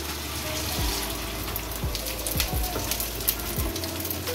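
Beaten eggs hitting hot ghee on a flat iron griddle (tawa), sizzling steadily with many small crackles as the batter spreads and its edges set.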